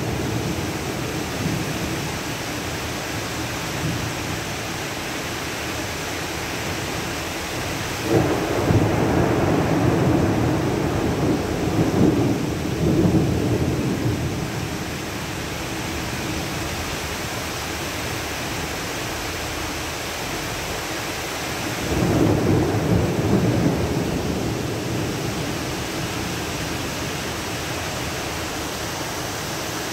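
Heavy summer rain pouring steadily onto trees and ground. Two louder swells come on suddenly, about a quarter of the way in and again about two-thirds through, and each fades over several seconds.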